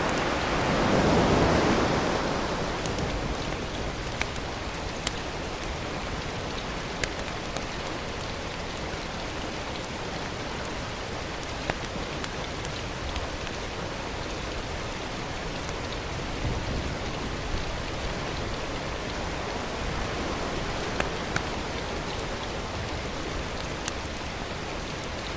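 Food frying in a pan, a steady sizzle with scattered sharp pops and spits; it swells louder in the first couple of seconds, then settles.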